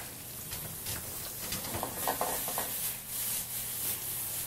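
Mushrooms sizzling in olive oil and butter in a hot sauté pan on a gas range, with a steady hiss, while the pan is rubbed and shifted on the burner grate.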